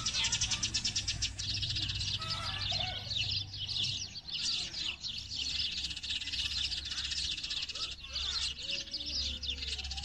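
A flock of sparrows chirping and chattering at once, a dense, continuous high twittering with many quick overlapping chirps. A fainter, lower drawn-out call sounds briefly near the end.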